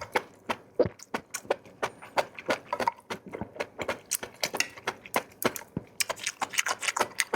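Close-miked eating: a quick, irregular run of sharp crunches and mouth clicks as food is chewed.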